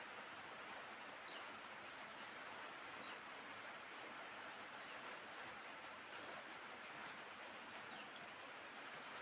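Steady background hiss with a few faint, short, high chirps from birds, spaced a second or more apart.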